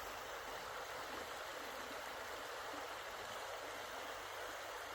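Low river water running steadily over the shallows: an even, unbroken rushing hiss.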